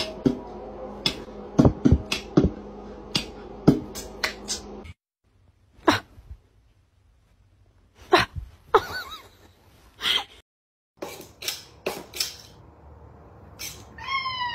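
A string of sharp clicks and knocks across several short clips, then a domestic cat meowing once near the end, a short call falling in pitch.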